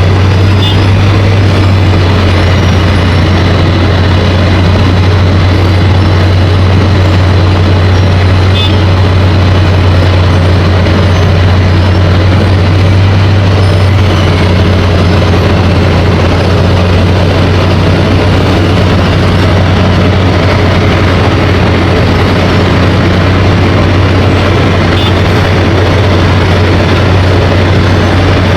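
Heavy road-construction machinery running steadily, with a loud, constant low drone under a dense mechanical rumble.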